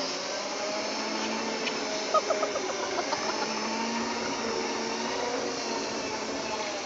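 Segway PT electric drive motors and gearboxes whining steadily under way, several tones together that slowly rise and fall in pitch as the speed changes. A short run of clicks about two seconds in.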